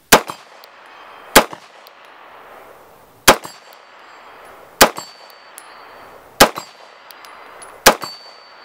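Six 9mm shots from a Grand Power K100 MK12 pistol, fired slowly and evenly about a second and a half apart. Several of the later shots are followed by a faint high ring, taken as hits on the steel target plate.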